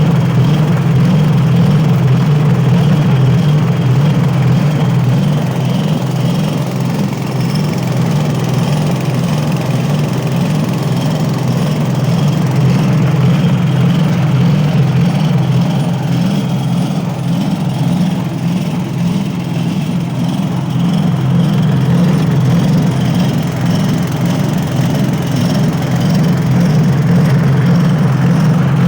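A 7 hp petrol engine running steadily at a constant speed, driving a homemade walnut-hulling machine through a 1:25 reduction gearbox.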